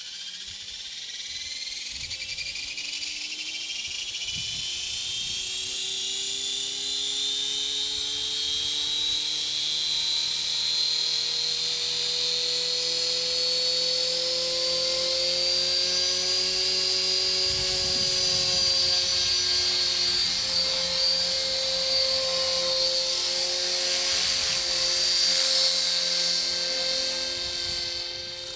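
VCTRC 450 flybarless electric RC helicopter running: the whine of its 3500 kV brushless motor and helical main gear rises in pitch as the rotor spools up over the first several seconds, then holds fairly steady as it flies.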